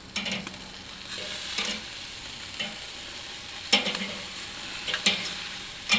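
Beef skewers sizzling on a grill grate over hot charcoal. Metal tongs clink several times against the steel skewers and grate as the skewers are turned.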